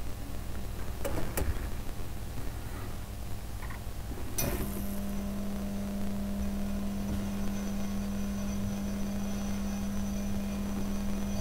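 Iwasaki FEC Sunlux Ace NH270FLS high-pressure sodium lamp running fully warmed up: a steady electrical hum with a faint high whine, setting in sharply after a click about four and a half seconds in. The fairly loud hum is typical of HID lamps with a built-in FEC starter.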